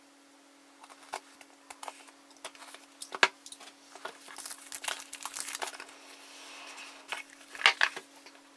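Unboxing a smartphone retail box: plastic wrap and packaging crinkling and tearing, with light taps and knocks of the cardboard box being handled. Two sharper knocks come about three seconds in and near the end.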